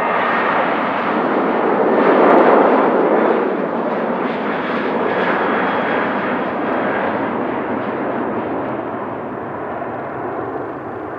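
Boeing 737-800's CFM56-7B jet engines at takeoff power during the takeoff run: a loud, even rushing jet noise, loudest about two and a half seconds in, then slowly fading.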